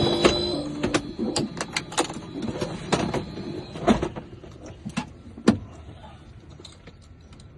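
Background music fades out within the first second, followed by a run of irregular sharp clicks and knocks that grow fainter, the loudest one about five and a half seconds in.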